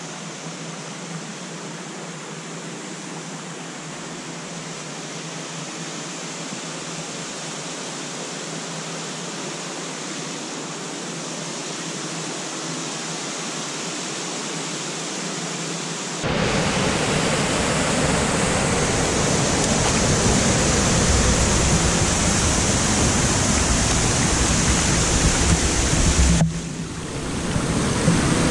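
Rushing water from Shotgun Falls and its creek, a steady hiss that slowly grows louder, then suddenly becomes louder and deeper about halfway through, with a brief dip shortly before the end.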